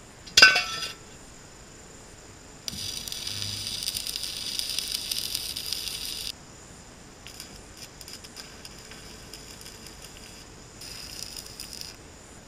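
A sharp metallic clank of steel box-section pieces being set together, then an arc welder's arc crackling in bursts: one run of about three and a half seconds, then two shorter, fainter runs, as steel tube is welded.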